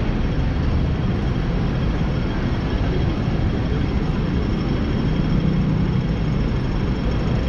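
Steady city street noise: a constant low rumble of passing traffic.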